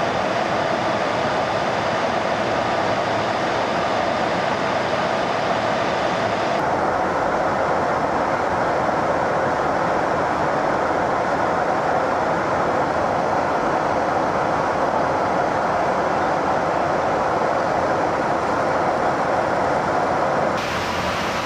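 Steady jet engine and rushing air noise heard from inside a large jet aircraft in flight. The noise turns duller about seven seconds in and brightens again just before the end.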